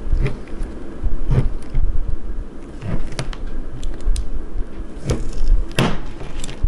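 A red-hot knife blade sizzling as it melts through a soft plastic swimbait, in several short hissing bursts, the loudest near the end, over a steady low rumble.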